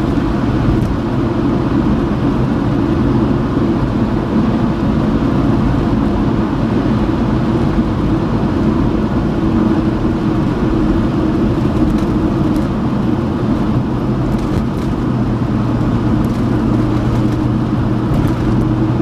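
Steady low drone of a moving car, engine and tyre noise heard from inside the cabin.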